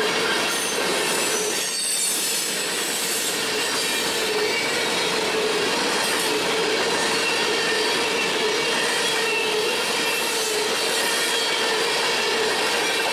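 Freight train cars rolling past on a curve, a steady rumble of steel wheels on rail with a wavering wheel squeal.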